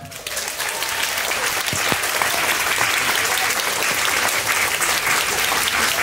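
Live audience applauding at the end of a song, swelling over about the first second and then holding steady.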